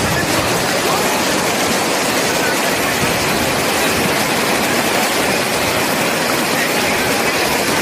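Muddy floodwater rushing over a submerged road in a steady torrent.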